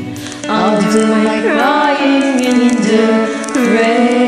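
Karaoke backing music holding a steady chord at the end of a slow ballad, with a voice singing wordless gliding notes over it.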